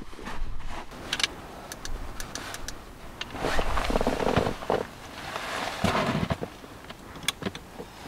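Rustling and shuffling of clothing and gear on a foam sleeping mat and snow, with scattered small clicks and two longer swells of rustling about halfway through. A low wind rumble runs underneath.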